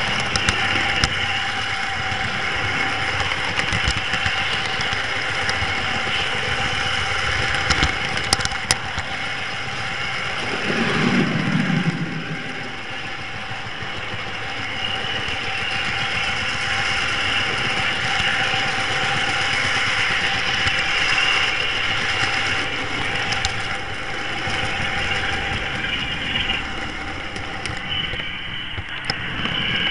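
Model train running along the track, heard through the Branor camtruck's built-in pinhole camera as it rides the layout: a steady mechanical hum and whine with scattered clicks, and a brief lower rumble about eleven seconds in.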